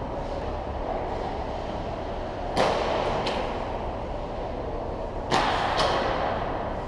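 Hockey rink sounds: a steady scraping rush of skates on the ice, broken by sharp cracks of sticks and pucks. The loudest cracks come in two pairs, about two and a half seconds in and again a little after five seconds.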